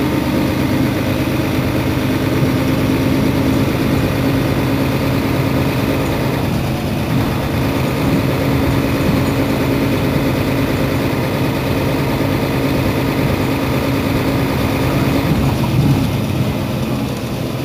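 Mercedes-Benz Citaro Facelift city bus engine running steadily at an idle-like speed, a low, even drone with no revving; it eases off slightly near the end.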